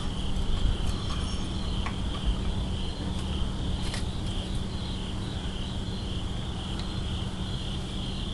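Steady high-pitched chirping chorus of crickets, with a low rumble underneath and a few faint clicks.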